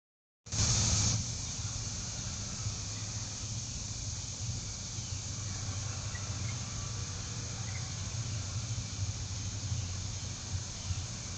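Steady outdoor background through a trail camera's microphone: an even high hiss over a low hum, with a few faint short chirps. A brief louder burst of hiss comes about half a second in, as the clip begins.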